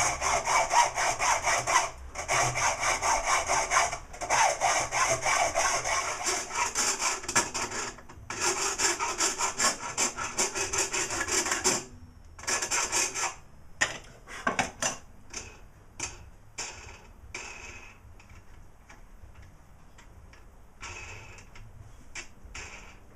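A saw cutting through threaded rod in quick, even strokes, with short pauses about two, four and eight seconds in. About twelve seconds in the steady sawing stops and gives way to a few separate scrapes and taps that die away.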